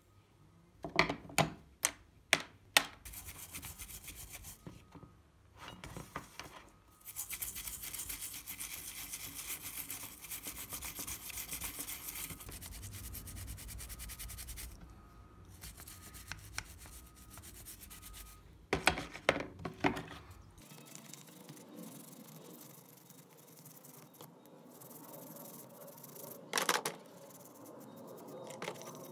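Hand work on an old door lock: a few sharp clicks and knocks, then long spells of steady rubbing or scrubbing, with another short run of clicks partway through.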